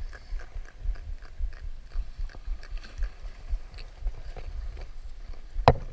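Close handling noise of a small jack being held and unhooked from a jerkbait: a run of small irregular clicks and crunches over a low rumble, with one sharp knock near the end.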